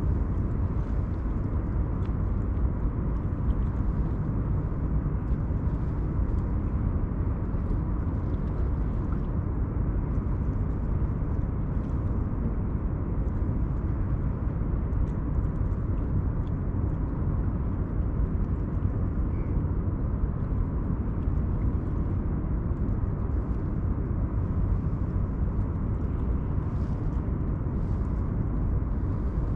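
Steady low rumble of outdoor background noise, unchanging in level, with faint scattered ticks above it.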